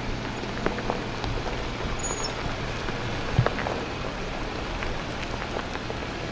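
Jeep Wrangler creeping down a rocky trail: a steady low engine hum under a constant crackle of small stones and gravel under the tyres, with a single thump a little past the middle.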